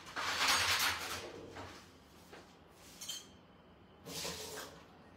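Spoon scraping thick mango halwa out of a cooking pan to serve it. There is a long scrape in the first second and a half, then shorter, softer scrapes about three and four seconds in.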